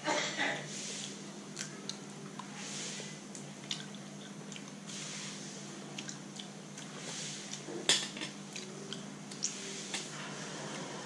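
Dungeness crab being eaten by hand: scattered small clicks and crackles of shell and of fingers picking over the plate, with wet chewing sounds. A crackly burst comes right at the start and a sharper click about eight seconds in.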